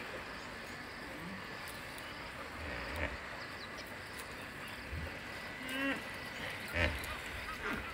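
Hippos grunting in a few short, deep bursts, the loudest about seven seconds in, over a steady background with small chirping calls. The grunts are taken as the hippos objecting to the elephant herd walking past them.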